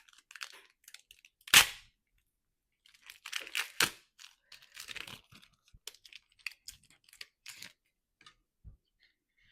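A trading-card pack wrapper being torn open and crinkled, with one loud sharp crackle about a second and a half in, then rustling and a run of short clicks as the cards are handled.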